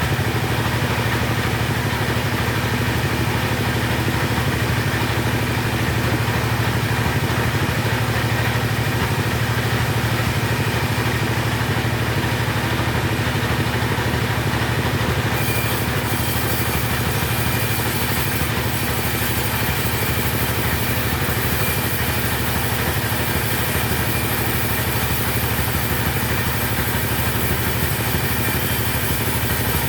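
Chainsaw engine running steadily at an even pitch and level.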